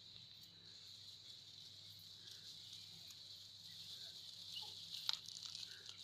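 Grass rustling and crackling as a hand parts the blades, with a few sharp crackles about five seconds in, over a faint steady high-pitched hiss.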